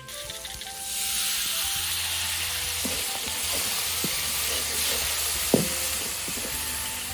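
Fish frying in a hot metal wok with chilies and herbs, sizzling steadily from about a second in, while a metal spoon scrapes and clinks against the pan as it is stirred. The loudest clink comes about five and a half seconds in.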